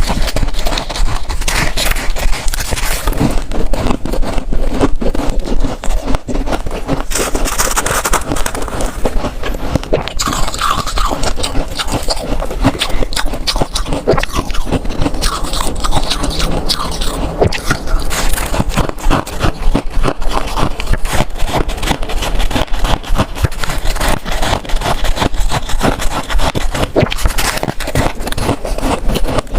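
Freezer frost being scraped, bitten and chewed close to the microphone: a dense run of crisp crunches and crackles.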